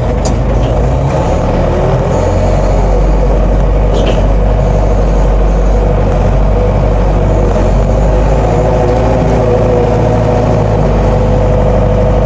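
Collins Teleshift 404 farm loader's engine working hard and steady as it pushes a heap of grain up with a pusher blade, with a couple of brief metallic clicks.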